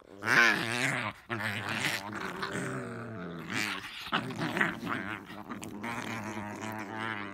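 Two dogs play-fighting, growling almost continuously with wavering pitch, with a few short breaks.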